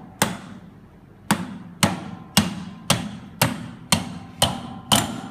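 Hammer striking a tool held against a metal part of a Hydramatic automatic gearbox, tapping the part into place. Nine sharp strikes come about two a second, each ringing briefly.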